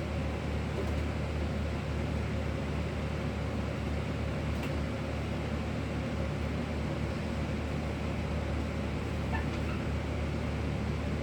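Steady low mechanical hum of a running motor, even and unbroken throughout.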